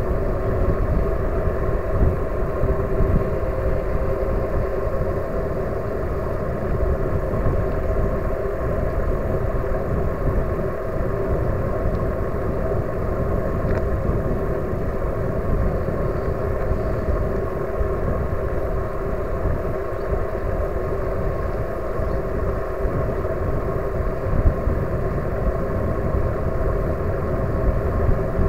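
Wind rushing over the microphone and tyres rolling on asphalt while riding an e-bike at a steady speed, with a steady whine from the bike's electric motor.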